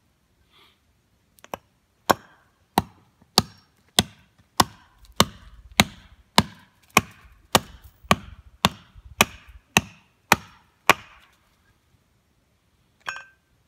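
An axe chopping chips off a piece of split firewood: about sixteen sharp, evenly spaced chops, a little under two a second, then a pause and one more chop near the end.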